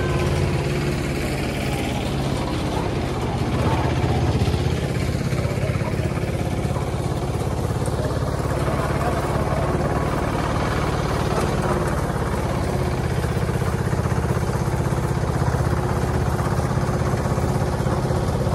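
Hand tractor engine running steadily at a constant speed while it tows a loaded trailer.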